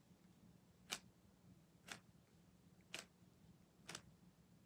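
Rubik's cube layers being turned, each turn giving a short, sharp click, about one a second.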